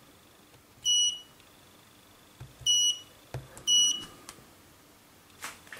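Three short, high electronic key beeps from a MUSTOOL MT8206 multimeter-oscilloscope, one for each press of its arrow buttons as the display zoom is changed.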